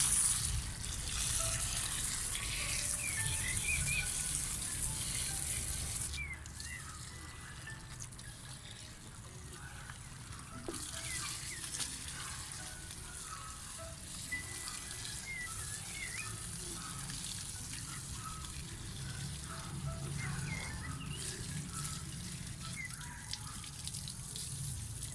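Water from a garden hose running into a pot of soil and splashing onto wet mud, louder for the first six seconds and softer after. The soil is being soaked to loosen an apple sapling's roots so they are not damaged when it is lifted out for transplanting.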